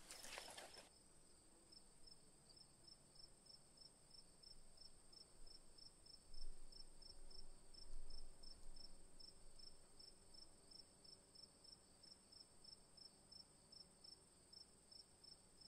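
Faint evening insect chorus: a steady high-pitched buzz with a second insect's chirp pulsing about three times a second. A brief rustle comes at the very start.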